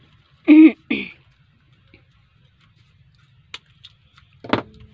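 A short two-part vocal sound about half a second in. Then light scattered ticks from paper peso banknotes being handled, with a sharper click near the end.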